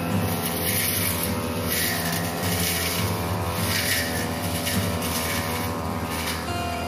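Backpack brush cutter with a 45 cm blade running steadily at working speed, trimming a hedge. A rushing hiss swells and fades every second or so as the blade sweeps through the leaves.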